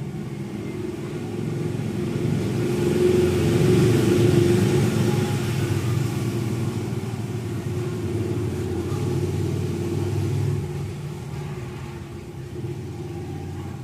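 A motor vehicle's engine rumbling, growing louder to a peak about four seconds in and dropping away after about ten seconds.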